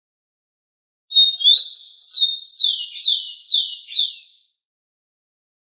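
Rufous-collared sparrow (tico-tico) singing one song, starting about a second in: a held whistled note that slides upward, then five quick down-slurred notes, about two a second.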